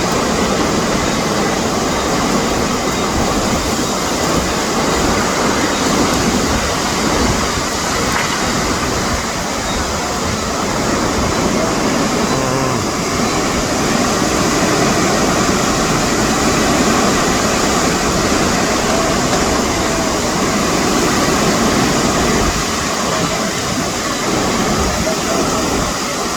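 Hurricane-force wind blowing hard and steadily: a loud, continuous rushing noise.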